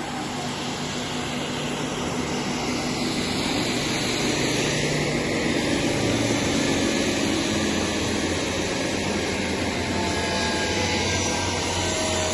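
TSK-15P Beaver finger-jointing machine running: a steady, dense whir of its cutter motors, getting louder over the first few seconds and then holding.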